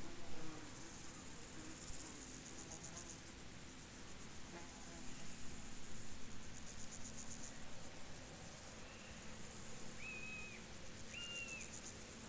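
Field insects chirping: high, finely pulsed trills about a second long, repeating every few seconds over a faint steady background. Near the end come two short whistled notes.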